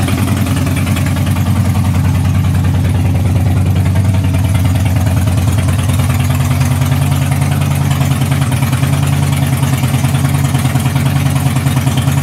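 Harley-Davidson Super Glide's air-cooled V-twin idling steadily, with an even, fast pulsing beat.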